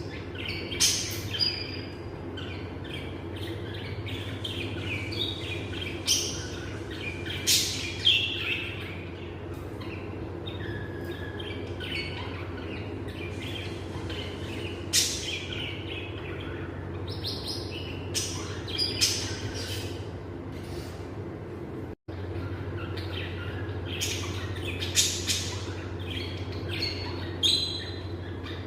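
Pet lovebirds chirping and calling in short, sharp, scattered bursts over a steady low hum. The sound drops out for an instant about two-thirds of the way through.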